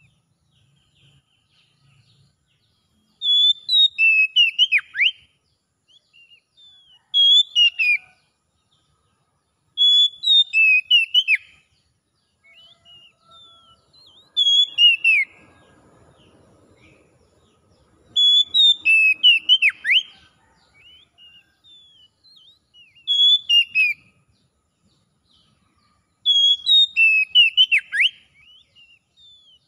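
Oriental magpie-robin (kacer) singing: about seven short phrases of clear, loud whistled notes, many sweeping downward, with pauses of a second or two between phrases.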